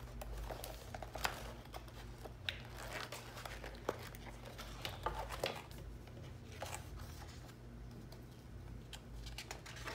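Paper planner pages and inserts being handled and turned: scattered rustling with light clicks and taps.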